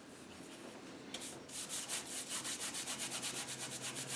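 A large paintbrush scrubbing acrylic paint back and forth in quick, even strokes, about six a second, starting about a second and a half in.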